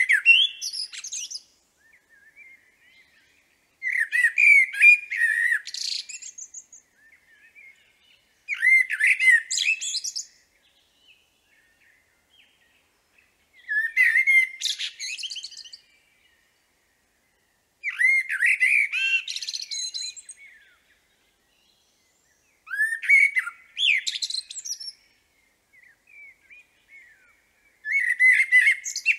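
Common blackbird singing: each phrase is a mellow, fluting warble that ends in a higher, squeaky twitter. There are about seven phrases of roughly two seconds each, repeated every four to five seconds with pauses between.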